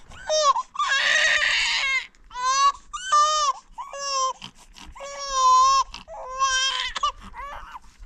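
A baby crying: a string of short, high, pitched cries, with a harsher, rasping cry about a second in.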